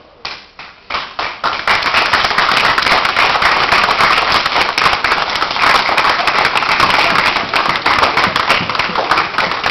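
Audience applauding: a few scattered claps at first, quickly swelling into steady applause that thins a little near the end.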